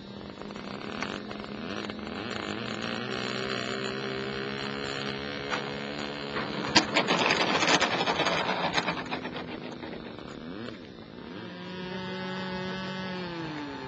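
Electric motor and propeller of a radio-controlled Fokker D.VIII model biplane humming as it comes in low, with a loud rushing burst about halfway through as it passes close. Near the end the motor's pitch drops as it throttles back on the ground.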